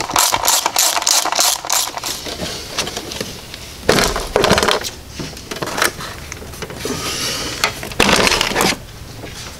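Ratchet wrench clicking in quick strokes for the first couple of seconds as a 10 mm engine-cover bolt is backed out. Then the plastic top engine cover is pulled off, scraping loudly twice, about four and eight seconds in.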